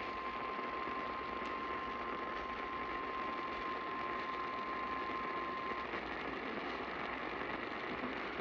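Emergency alert tone for a tornado warning relayed over AM radio: one steady, single-pitch tone over a bed of radio static hiss. The tone cuts off about six seconds in, leaving only the static.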